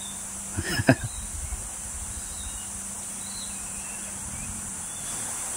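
Steady high-pitched chorus of insects, with a faint low hum underneath and a brief voice sound about a second in.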